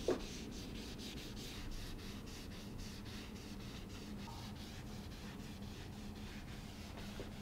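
Faint rubbing of a gloved hand wiping varnish onto dyed tongue-and-groove pine boards, a quick run of soft, even strokes over a low steady hum.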